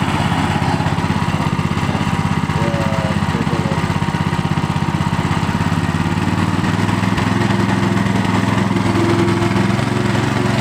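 Water pump running steadily under a leak test of its volute housing, a continuous pulsing motor hum; the low part of the hum grows heavier about six seconds in.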